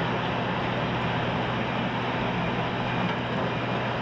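Heavy truck engine running steadily, a constant low drone with a steady hum under it.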